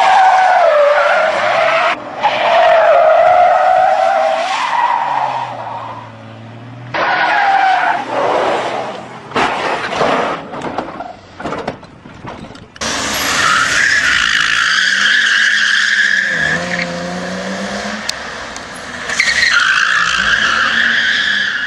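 Car tyres squealing through a series of skids and spins, the pitch wavering in long screeches, with a long higher squeal in the second half. Engines rev underneath at times.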